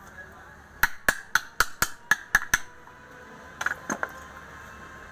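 Light hammer taps in quick succession, eight at about four a second, then a few more about a second later.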